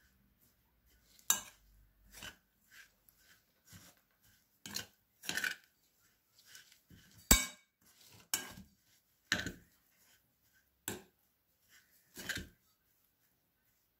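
Metal cutlery clinking and knocking irregularly against a glass mixing bowl while mashed cauliflower and tuna are stirred together, with about a dozen separate strikes.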